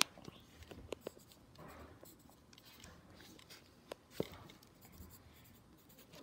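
Pencil scratching on paper in a hardcover sketchbook, with a few sharp taps and knocks, the loudest near the start and about four seconds in.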